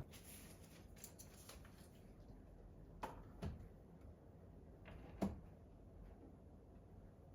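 Near silence: small-room tone with three faint, short taps spread through it.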